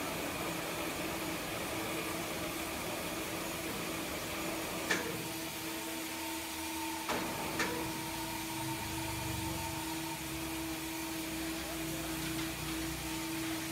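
Steady machinery hum with a constant low tone. A sharp knock comes about five seconds in and two more about seven seconds in, from the crane hook and its chains being rigged onto a log.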